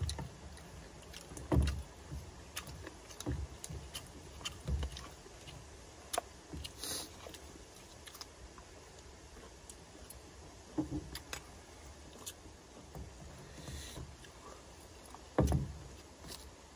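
Quiet, scattered clicks and light knocks of bowls, spoons and pots being handled while people eat, with a few low bumps.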